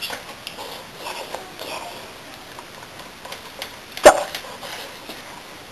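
A Staffordshire bull terrier gives a single short, sharp sneeze about four seconds in, after faint rustling and clicking as he works at the toy.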